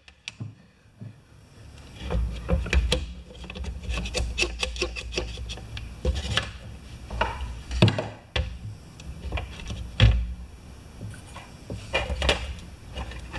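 Handling noise: clicks, knocks and rubbing as a pressure washer's metal wand and plastic spray gun are moved about and fitted together on a steel workbench. The two loudest knocks come about eight and ten seconds in.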